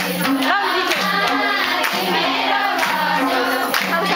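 A Teej dance song: singing over a bouncing two-note bass line and a steady beat.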